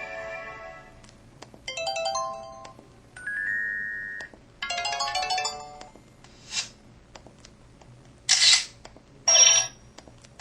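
A series of the MS300 mobile phone's built-in alert and effect sounds played one after another: the end of a melody, a short chime phrase, a steady beep, a brief jingle, then three short hissy effect sounds near the end, the last two the loudest.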